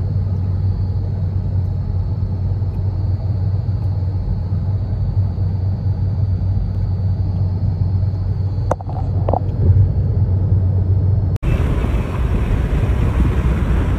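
Steady low road and engine noise inside a moving car's cabin, with a couple of brief clicks a little past the middle. About three-quarters of the way through, it cuts abruptly to a rougher, hissier rumble.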